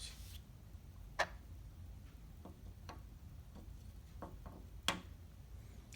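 Light clicks and taps of small objects being handled, irregularly spaced, the sharpest about a second in and near the end, over a faint low hum.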